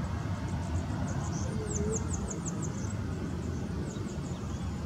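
Boeing 737-800's CFM56 jet engines at taxi thrust, a steady low rumble as the airliner rolls along the taxiway. About a second and a half in, a bird gives a quick run of short, high chirps.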